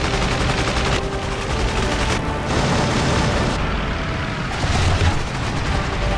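Rapid machine-gun fire in bursts, as from fighter aircraft in a dogfight, with music underneath.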